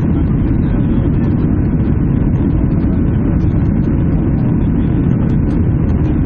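Cabin noise inside a Boeing 737-800: its CFM56-7B jet engines and the airflow making a steady low rumble, unchanging throughout.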